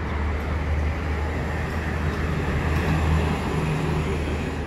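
Steady low engine rumble, swelling slightly about three seconds in.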